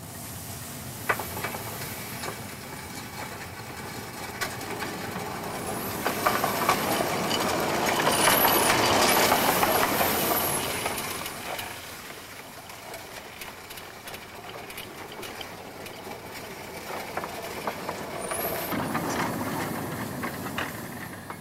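A one-third-scale, home-built, wood-fired Shay steam locomotive on 12-inch gauge track running past, steam hissing. It grows louder to a peak about halfway through as it goes by, then fades as it pulls away, with a smaller rise again near the end.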